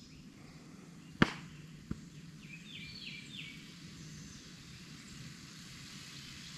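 Faint steady sizzle of bacon and burgers frying at a campsite cook-out. A sharp tap comes about a second in, the loudest thing heard, and a lighter one follows shortly after. A few short bird chirps sound in the middle.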